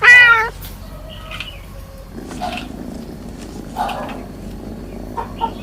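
A kitten meows once, loudly, a single cry whose pitch rises and falls, right at the start. Afterwards only fainter background sounds follow, with a couple of soft clicks near the end.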